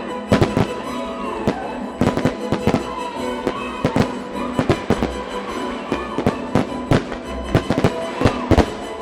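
Fireworks shells and crackers going off in a rapid, irregular series of sharp bangs, over the music played for the pyromusical display.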